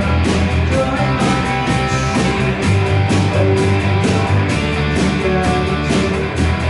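Live rock band playing: two electric guitars, a bass guitar and a drum kit keeping a steady beat.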